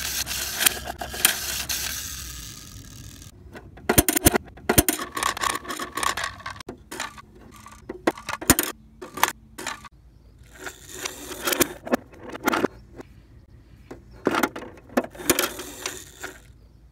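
Hard plastic toys being handled: the roll-up doors of a toy bus garage rattling open and toy buses and a toy engine clattering and scraping on concrete. The clicks and rattles come in several bursts with short pauses between.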